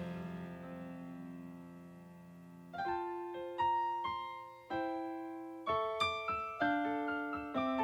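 Solo piano outro of a pop ballad. A held chord fades away, then about three seconds in slow piano notes and chords start again, each struck and left to ring out.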